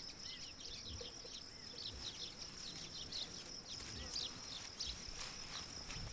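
Faint field ambience: many short, falling bird chirps, several a second, over a steady high insect drone.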